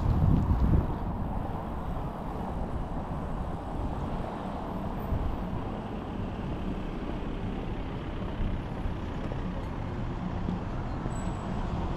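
Road traffic noise in a city street: a steady hum of vehicles, with a louder low rumble in the first second.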